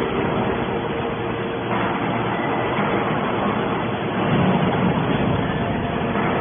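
Hydraulic scrap metal baler running: steady machine noise with a constant hum, swelling a little louder and lower about four seconds in.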